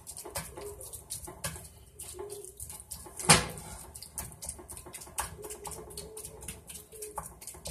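Ground beef sizzling and crackling in a cast-iron skillet while a spatula scrapes and chops through it, with one sharp knock of the spatula against the pan about three seconds in.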